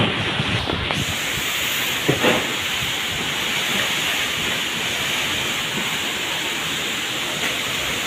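Heavy rain pouring in a strong windstorm, a steady hiss of rain and wind, with one brief knock about two seconds in.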